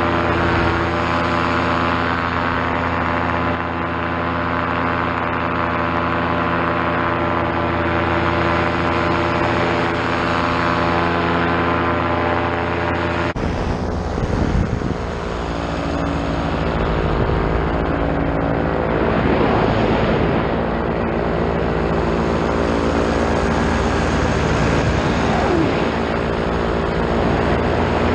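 Paramotor trike's two-stroke Vittorazi Moster engine and propeller running steadily in flight. About halfway through the sound changes abruptly: wind buffets the microphone and the engine note wavers up and down.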